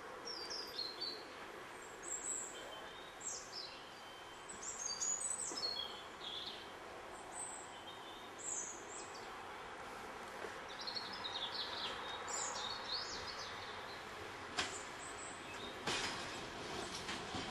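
Birds chirping and singing over a steady outdoor background hiss. Over the last few seconds the background grows louder as a diesel multiple unit draws nearer, and a few sharp clicks are heard near the end.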